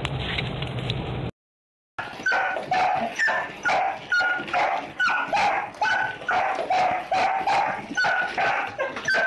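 A dog barking in a fast, even series, about three barks a second, from about two seconds in. Before that, a second or so of steady car road noise that cuts off.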